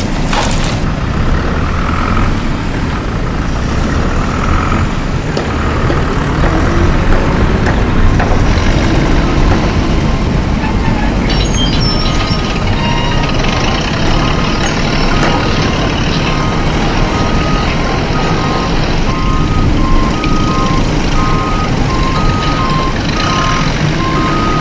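Heavy truck engine running with a steady low rumble; about halfway through, a reversing alarm starts beeping steadily, alternating between two close pitches.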